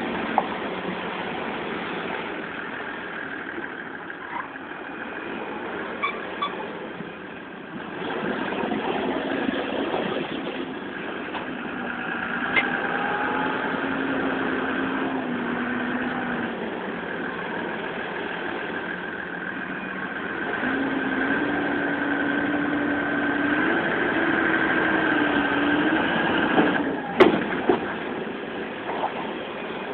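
Fendt 926 tractor's six-cylinder diesel engine running with its revs held up while it works the hydraulics that raise the Redrock silage trailer's tipping body. The engine note steps up and down several times, and a few sharp knocks come near the end as the load slides out.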